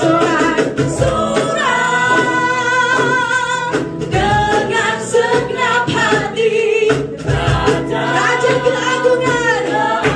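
Live worship band playing a gospel praise song: several women singing together, with keyboard and cajon accompaniment keeping a steady beat.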